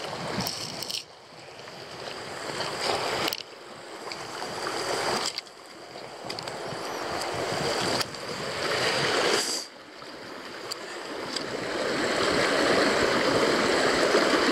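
Mountain stream rushing over rocks, a steady hiss of running water whose level drops abruptly and builds again several times.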